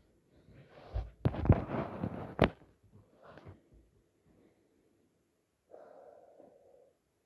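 Body-weight floor exercise on carpet: a flurry of thumps and rustling as hands and feet land and shift, about a second in, the last knock sharpest. A softer breathy sound follows near the end.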